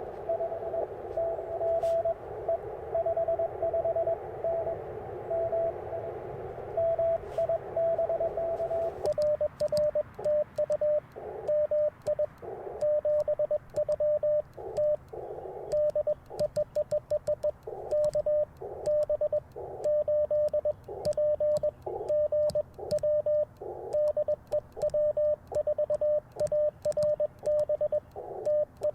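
Morse code through an Icom IC-705 transceiver on 30 meters. For about nine seconds an incoming station's keyed tone sounds over steady band hiss. Then the operator starts sending: a slightly lower sidetone in dits and dahs, with sharp clicks from the twin paddles and the receiver hiss dropping in and out between elements.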